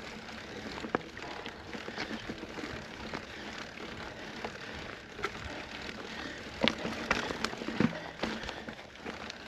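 Mountain bike climbing a rooty dirt trail: tyres rolling over dirt and roots with a steady hiss, scattered clicks and rattles from the bike, and a few sharper knocks about seven seconds in.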